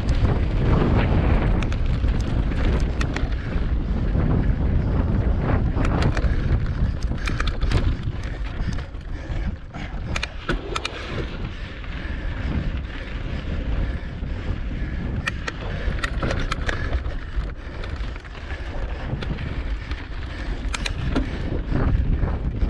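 Wind buffeting the microphone of a camera mounted on a cross-country mountain bike, over tyre noise on loose rocky dirt. Frequent sharp clicks and rattles come from the bike jolting over rocks.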